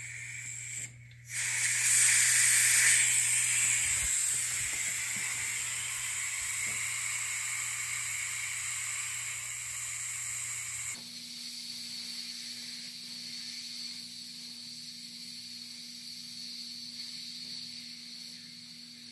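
Compressed air hissing out of an air compressor tank's open valve as the tank is let down. The hiss drops out briefly about a second in, comes back at its loudest, then slowly tapers off.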